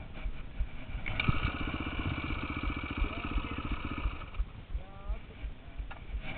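Dirt bike engine running for about three seconds: it comes in about a second in and drops away soon after the middle, over irregular low thumps.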